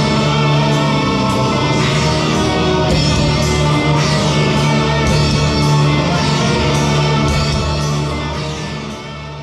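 Symphonic black metal with electric guitars, loud and dense, fading out near the end.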